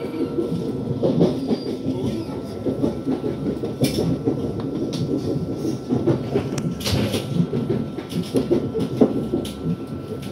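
Lastochka (Siemens Desiro) electric train running along the track, heard from inside the passenger car: a steady low rumble with clattering wheels and a few sharper knocks, the loudest about four and about seven seconds in.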